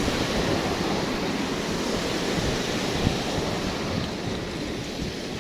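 Steady rushing outdoor noise with no distinct events, of the kind made by wind on the microphone and moving water.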